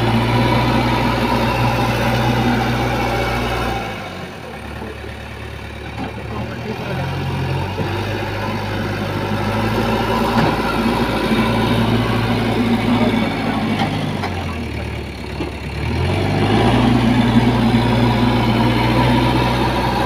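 JCB backhoe loader's diesel engine running while the machine works sandy soil with its front bucket. The engine drops to a lower, quieter idle about four seconds in and again around fifteen seconds, each time revving back up after a couple of seconds.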